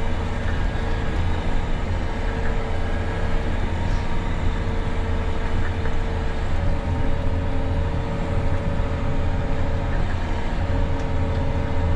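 John Deere 9R 490 articulated tractor's engine running steadily, heard inside the cab: an even low drone with a steady whine above it.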